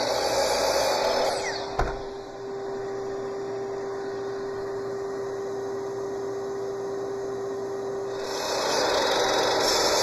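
Makita sliding compound miter saw crosscutting 3/4-inch cypress boards: the motor is running and cutting through about the first second, then winds down, with a sharp knock just after. A second cut starts about eight seconds in, after a steady hum between the two cuts.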